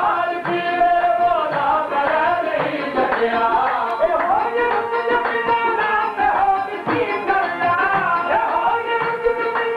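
Qawwali music: a man singing with harmonium and hand-drum accompaniment, the drum strokes sounding steadily under the melody.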